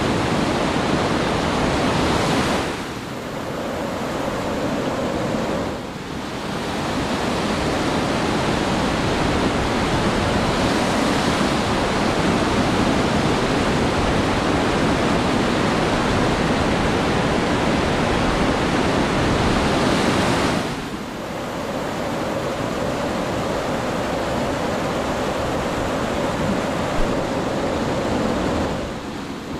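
Class IV whitewater rapid: a steady, loud rush of water churning over boulders. It drops somewhat quieter for a few seconds about three seconds in, and again from about twenty seconds on.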